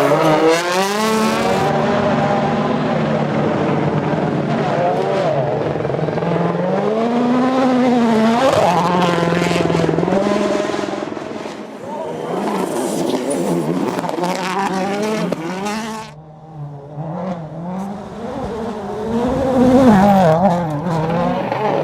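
Rally car engine revving hard, its pitch climbing and dropping again and again with the gear changes. About sixteen seconds in it briefly falls away, then picks up again.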